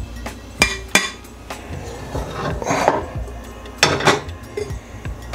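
Pots being handled on a gas range's metal grate: a string of clanks and knocks as a lidded enamelled pot is set down, with the hardest clanks about four seconds in.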